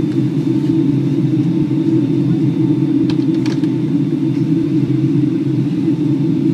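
Boeing 757-200 airliner cabin noise on descent: a steady, loud roar of airflow and engines heard from inside the cabin, with a faint high whine and a couple of faint clicks.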